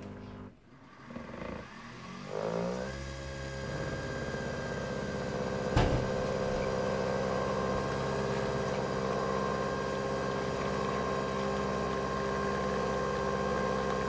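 Nespresso VertuoPlus capsule coffee machine brewing: its motor spins up about two seconds in, then runs with a steady whir and hum as the coffee pours into the mug. A single sharp click about six seconds in.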